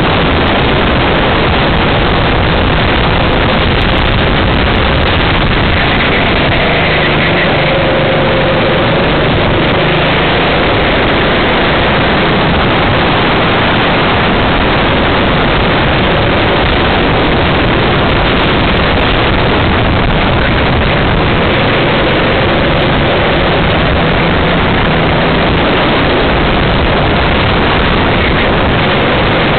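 Racing kart's engine running at race speed, heard from on board, its note rising and falling through the corners under a loud, steady rush of wind on the microphone.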